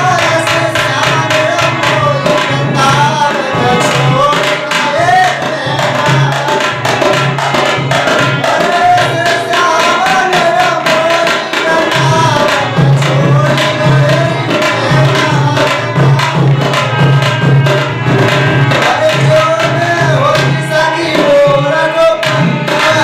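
Music: a man singing a song over steady tabla strokes.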